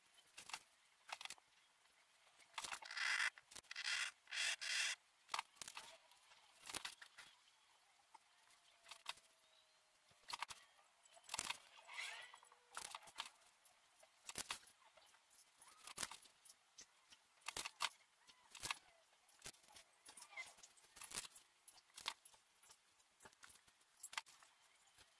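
Faint, sped-up background sound: scattered quick clicks and brief high, chattery bursts, with a busier stretch a few seconds in.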